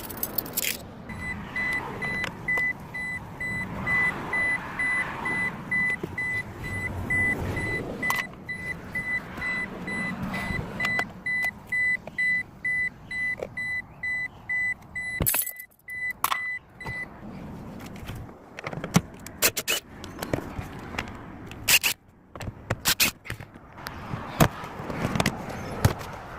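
2017 Toyota Tacoma's cabin warning chime beeping over and over at an even rapid pace, stopping after about sixteen seconds. Scattered clicks and knocks of handling follow.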